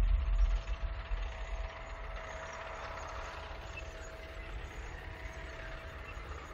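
Farm tractor engine running steadily as it pulls an implement across a field: a low drone with a faint steady whine, louder over the first two seconds and then level.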